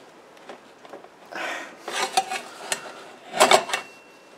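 Sheet metal being bent by hand over a steel pipe in a vise to form an expansion-chamber cone section: metal scraping and rubbing on metal, a few light clinks, then a cluster of sharp metallic clanks about three and a half seconds in.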